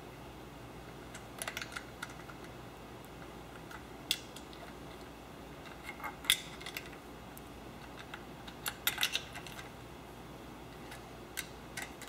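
Scattered light metallic clicks and taps of small nuts and washers being handled and fitted by hand onto the engine's oil sump studs, coming in small clusters every couple of seconds.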